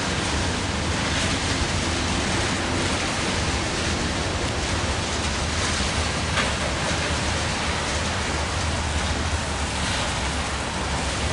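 Steady hiss of rain, with the low rumble of a slow-moving BNSF grain train of covered hopper cars rolling past.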